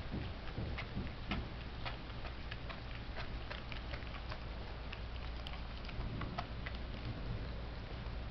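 A dog chewing a raw pork trotter: irregular sharp crunches and cracks of bone and hoof, a few a second, over a steady low rumble.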